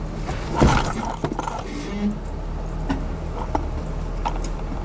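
Jeep Wrangler coming down onto a rock with a loud metallic bang about half a second in, which the driver takes to be the rock slider hitting. Scattered clinks and knocks follow over the low hum of the idling engine.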